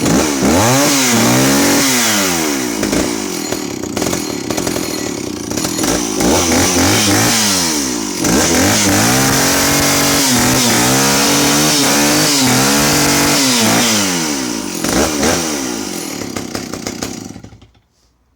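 Stihl 041 AV 61cc two-stroke chainsaw running and being revved up and down repeatedly, its crankshaft seals and fuel lines freshly replaced. It is switched off near the end and goes quiet.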